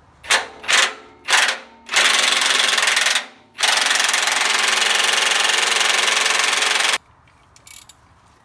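Impact wrench driving the nut onto a tractor fender bolt: three short trigger blips, then it hammers steadily for about a second, pauses briefly, and runs again for about three seconds before stopping suddenly.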